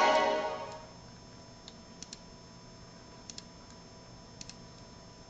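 A loud ringing tone fades out within the first second. Then come faint clicks from a laptop's buttons, mostly in quick pairs, a few times, over a low steady electronic hum.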